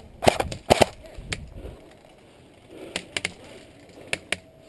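Airsoft guns firing single shots as sharp cracks: two loud ones in the first second, then fainter shots, three close together about three seconds in and two more near the end.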